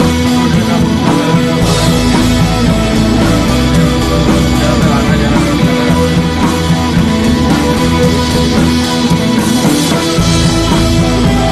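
Loud background rock music with guitar.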